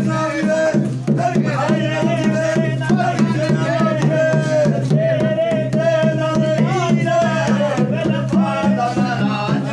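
Music: a sung melody over a steady drum beat.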